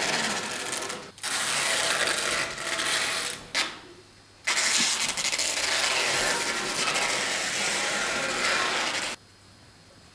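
Packing tape being pulled off the roll in long ripping stretches: a few pulls with short breaks between them, the last and longest stopping suddenly near the end.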